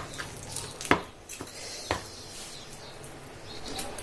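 Wooden hand masher pressing boiled potatoes in a plastic tub, making three knocks in the first two seconds, then quieter.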